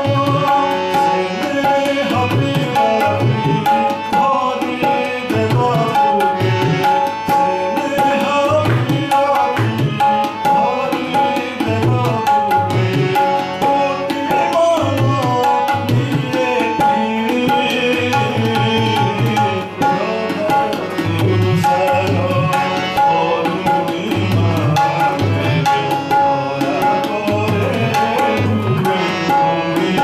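A man singing to harmonium and tabla accompaniment: the harmonium holds a wavering melody while the tabla keeps a steady rhythm of low strokes.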